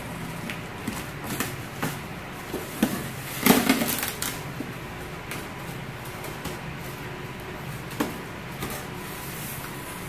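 A cardboard box being handled and opened: scattered taps and rubbing, with a louder scraping rustle about three and a half seconds in and a sharp tap near the end.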